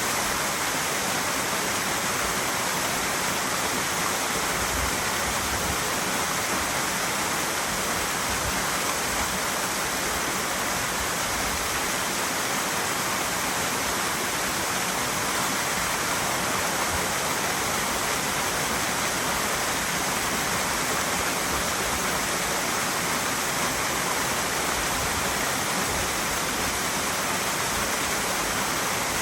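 Mountain stream water rushing over rocks, a steady unbroken rush.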